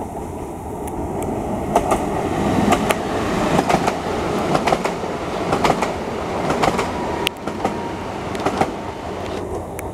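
Newag Impuls 45WE electric multiple unit passing close by, its wheels clicking over the rail joints above a steady rumble that swells as the cars go past.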